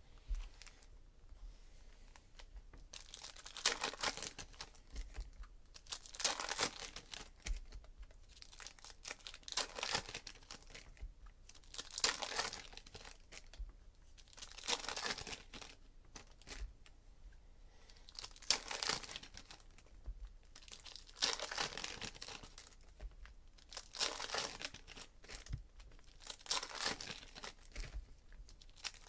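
Foil trading-card pack wrappers crinkling and tearing as packs are torn open one after another, a crackly rip about every two to three seconds.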